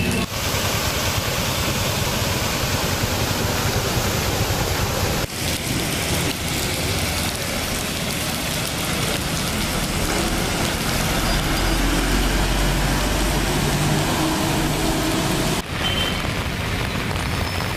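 Heavy rain pouring down in a dense, steady hiss, breaking off briefly twice as the footage cuts. A low steady hum joins in for a few seconds in the middle.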